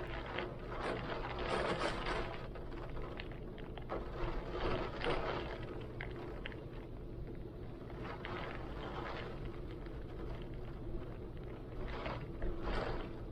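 Heavy wind blowing in gusts with rain, swelling and easing every few seconds.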